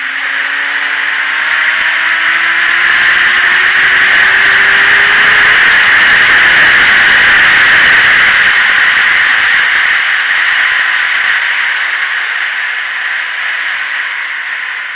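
Wind buffeting the microphone of a sport motorcycle's onboard camera at track speed. The faint engine note climbs through the gears over the first few seconds while the wind swells to its loudest mid-way, then eases as the engine note falls near the end.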